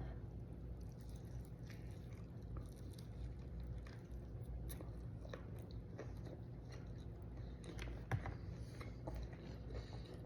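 Faint sounds of a person chewing and biting food, with scattered small clicks and taps over a low background hum.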